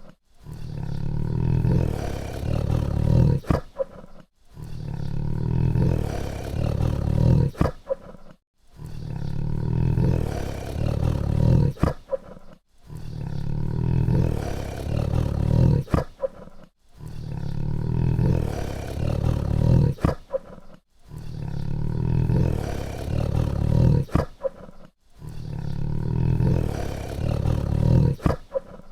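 Tiger roar sound effect, a deep rough growling roar looped over and over, the same roar about every four seconds. Each repeat ends in a few short sharp cracks and a brief gap.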